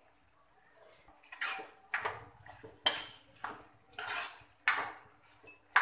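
A spatula stirring a thick, grainy aloe vera and fenugreek-seed sabji in a steel kadhai, scraping and clinking against the metal in rhythmic strokes of about two a second that begin a second or so in.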